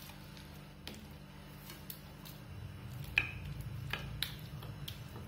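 Wooden spatula spreading thick, hot halwa across a steel plate: soft squishing with light scrapes and clicks of wood against the steel, the sharpest about three seconds in.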